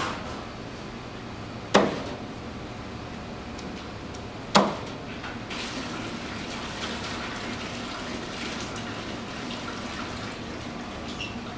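A heavy Japanese kitchen knife chops through yellowtail head and bones onto a plastic cutting board: three sharp strikes, the loudest about two and four and a half seconds in. Steady kitchen background noise follows.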